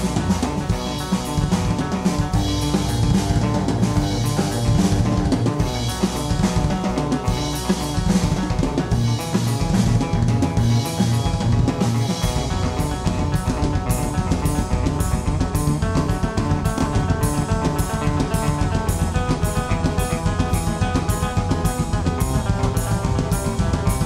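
Instrumental band music with a full drum kit, bass drum and snare, playing a steady beat under pitched instruments.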